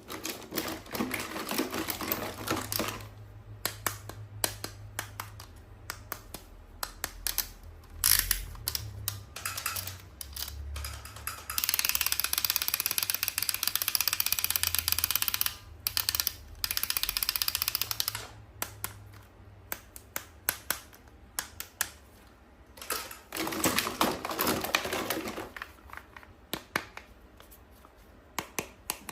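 Toys and their packaging being handled, giving rapid, irregular clicks and taps. A loud, steady crinkling hiss runs for about six seconds in the middle, and shorter rustling stretches come near the start and near the end.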